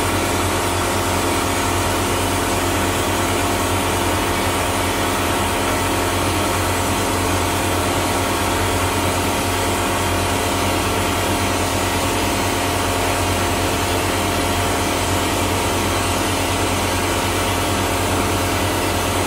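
Vapor blasting gun with a 3D-printed plastic nozzle spraying a wet abrasive slurry with compressed air onto a part: a steady, loud hiss over a steady machine hum. The blast cuts off at the very end as the compressor's pressure runs low.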